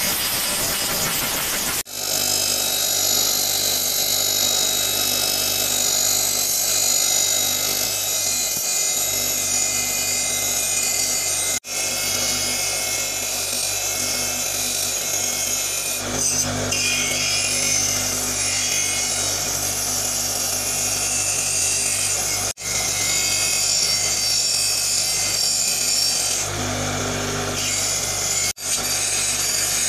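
Bench grinder running with its spinning wheel pressed against a steel air rifle tube, a steady hiss of metal being scoured over the motor's hum as rust and old finish are stripped off. The sound breaks off briefly four times.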